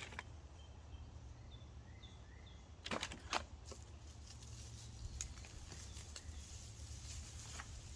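Quiet outdoor ambience with a steady low rumble and a few faint bird chirps, broken by two brief sharp clicks about three seconds in.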